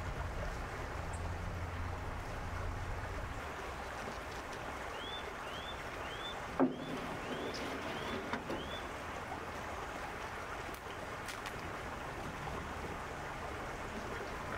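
River water running steadily, with low wind rumble on the microphone in the first few seconds. Midway a high chirp repeats about eight times in quick succession, and a single sharp knock comes about six and a half seconds in.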